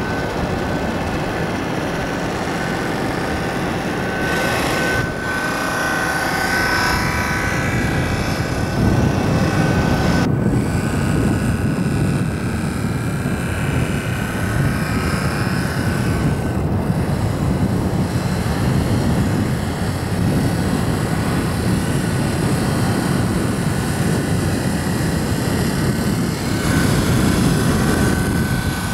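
Steady outdoor rumble of wind buffeting the microphone, with a faint steady high whine. The noise shifts abruptly a few times as the shot changes.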